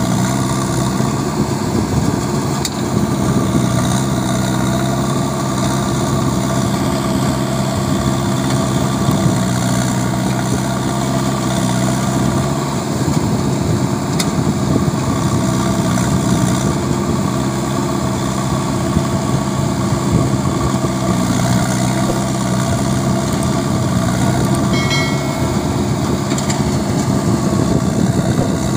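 JCB 3DX backhoe loader's four-cylinder diesel engine running steadily while the backhoe digs, its note shifting slightly now and then.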